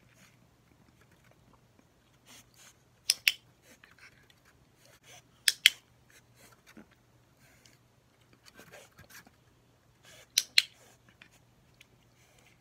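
A dog-training clicker clicked three times, each a sharp double click-clack, marking the puppy's correct paw lift in clicker training. Faint rustling between the clicks.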